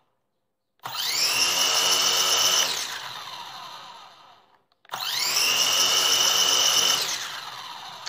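Drone motors of an SG907 Pro spinning up with a rising whine, running steadily for about two seconds, then spinning down. This happens twice. It is a bench test of the motors after a crash, in which one motor was not turning as it should.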